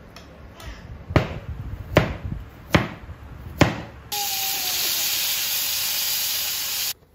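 A kitchen knife chopping a carrot on a cutting board: four sharp chops, about one every second. Then food frying in a pan gives a loud, steady sizzle that starts and stops abruptly.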